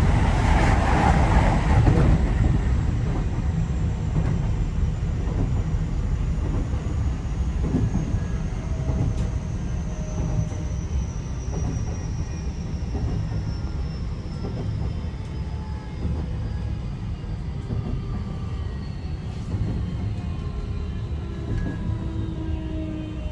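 Keio 5000 series electric train heard from inside the car while slowing: steady running rumble with the motor and inverter whine falling slowly in pitch, growing gradually quieter.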